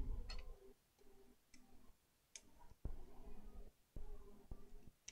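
A few light, scattered clicks and taps from small tools and parts being handled on an electronics repair bench.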